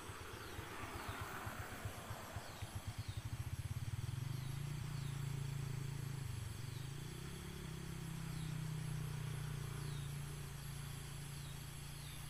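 An engine running: its low beat quickens over the first three seconds or so, then settles into a steady hum. Short, high, falling chirps repeat every second or so above it.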